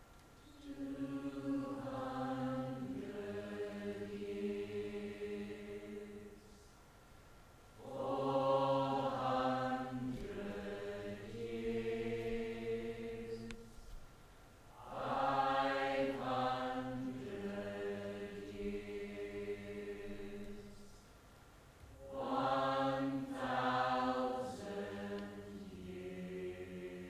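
Voices singing a slow chant in four long phrases of held notes, with short breaths between phrases.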